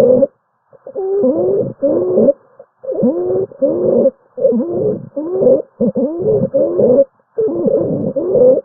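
Stridor: a harsh, pitched breath sound with every breath, coming in quick strokes about every half second, whose tone bends up and down. It is the sign of turbulent airflow through a partially obstructed upper airway.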